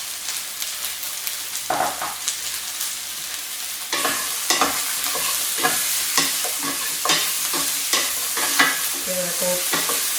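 Chicken wings stir-frying in sesame oil with peppers and spring onion: steady sizzling, with a utensil scraping and tossing the food around the pan. The stirring strokes come more often from about four seconds in.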